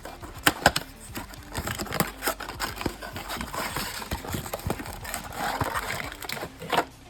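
Hands opening a trading card box and its packs: irregular sharp clicks and taps of cardboard, with crinkling rustles of plastic wrapping. The two loudest clicks come about half a second in.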